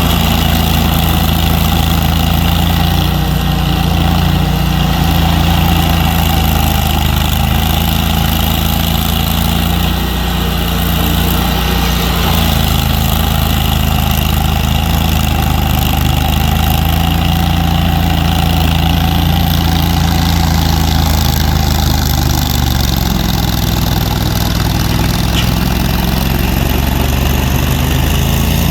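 A large engine running steadily at a constant speed, loud and even, with slight shifts in its pitch partway through.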